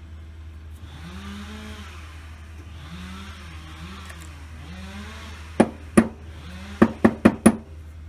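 Hard metal tools and lock parts knocking onto a wooden workbench: about six sharp knocks in the second half, over a steady low hum. Before them, for several seconds, a low tone rises and falls in repeated arcs.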